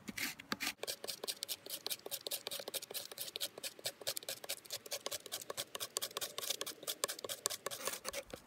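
Steel bushcraft knife blade scraping the surface of a sheet of birch bark in quick, repeated short strokes, several a second, shaving it into fine tinder.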